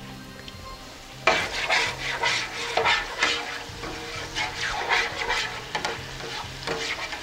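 Spatula stirring and scraping through a gravy reducing at a simmer in a stainless steel roasting pan, in repeated strokes that start about a second in, over the bubbling of the liquid.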